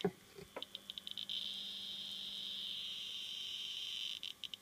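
Radiometer clicking: separate high clicks that quicken and merge into one continuous high buzz for about three seconds, then break back into separate clicks near the end. This is the meter registering a very high dose rate from a running X-ray tube. A faint low hum lies underneath.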